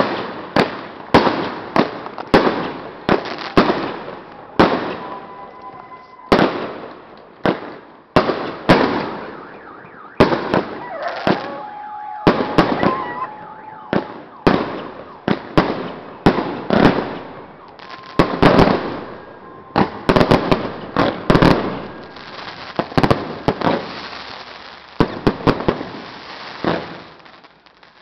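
Fireworks bursting overhead in a rapid barrage: dozens of sharp bangs, about two a second, each echoing off the surrounding apartment buildings. A steady tone sounds a few times between the bangs.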